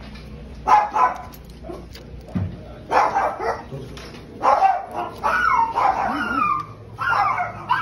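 A dog barking and yipping in repeated short calls.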